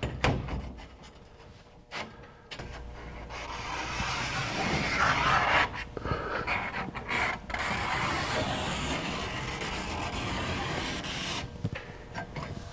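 A hole being cut by hand, with rasping, rubbing saw strokes running on for about nine seconds. It starts after a few knocks and stops shortly before the end.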